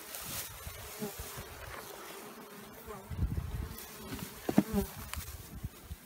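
Honey bees buzzing around an open hive, a faint wavering hum, with one sharp knock a little past halfway.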